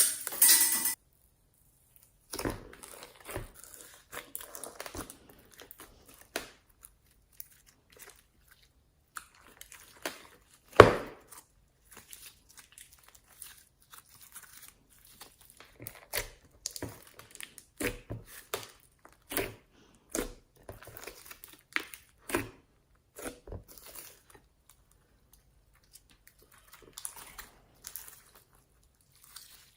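Homemade slime being squeezed and worked by hand, giving irregular sticky crackles and small pops, with one louder pop about eleven seconds in.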